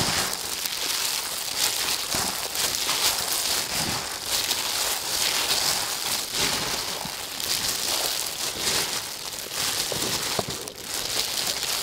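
Gloved hands kneading a rice mixture in a stainless steel bowl: a steady, uneven rustling and crinkling of the disposable plastic gloves and the rice mixture being squeezed and turned.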